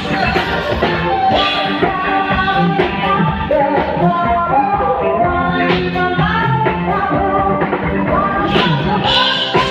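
A song with a singing voice over a full band with a steady beat, in a rock-and-roll or pop style.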